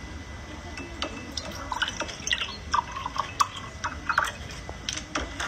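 Milk poured from a plastic bottle into a mug, glugging and splashing in quick irregular gulps from about two seconds in.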